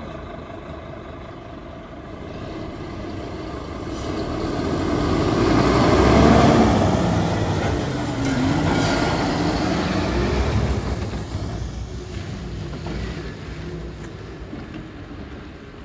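2012 Scania P230 truck's five-cylinder diesel engine running as the truck approaches, passes close by and pulls away, loudest about six seconds in and fading after. The engine note dips and then climbs again about eight seconds in.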